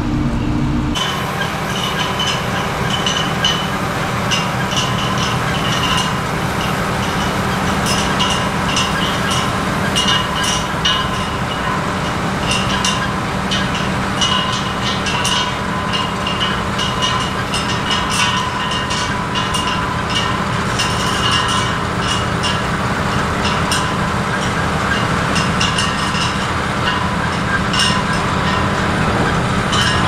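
Briefly a tractor engine running as a tipper trailer dumps potatoes. Then a Grimme Varitron 470 self-propelled potato harvester at work: a steady engine drone with continual clattering and clinking from its sieving webs and elevators as crop and soil pass through.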